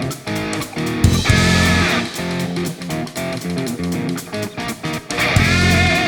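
Background music played on guitars with a steady beat, rising to two louder bursts about a second in and near the end.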